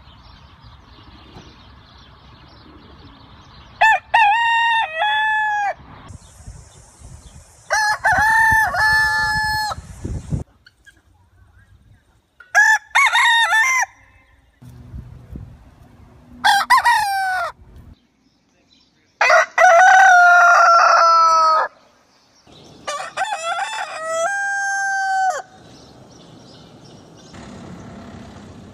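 Roosters crowing cock-a-doodle-doo, about six separate crows a few seconds apart, with a different bird and background between crows.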